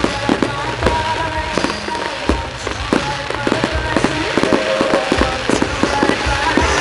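Fireworks going off in quick succession, many sharp bangs and crackles a second, over loud pop music played for the display.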